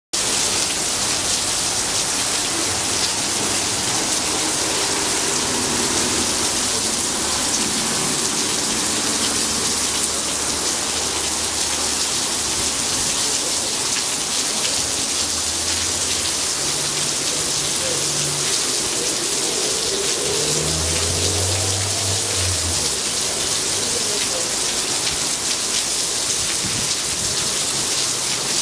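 Torrential rain pelting a street and pavement, a steady dense hiss. A faint low rumble comes and goes in the middle.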